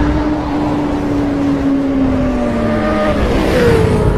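Motorcycle engine sound effect, a steady high-revving note whose pitch slides slowly lower. Near the end a second, higher engine note drops in pitch.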